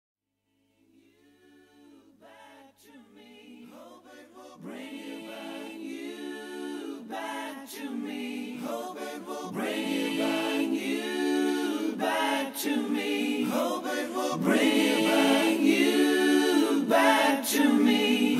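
Layered, choir-like wordless vocal harmonies fade in from silence about a second in and build steadily louder.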